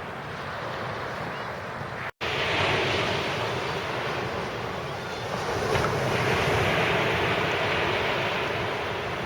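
Sea waves breaking and washing up a shingle-and-sand beach, swelling and easing, with wind on the microphone. The sound cuts out for an instant about two seconds in.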